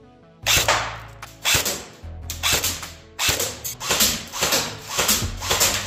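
Background music with a steady bass line and hard, sharp hits. The hits come about once a second at first and quicken to about three a second from about four seconds in.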